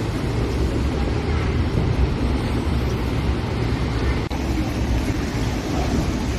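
Steady rumble of road traffic on a flooded street, vehicles running through standing floodwater, with a short click and dip about four seconds in.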